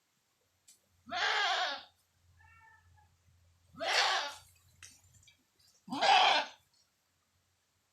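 A goat bleating loudly three times, each call about two-thirds of a second long and about two seconds apart: the calls of a goat left alone on the far side of a canal, frightened to jump across.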